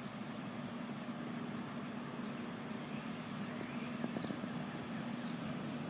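A steady low engine hum from a distant vehicle, with a faint rapid high ticking above it.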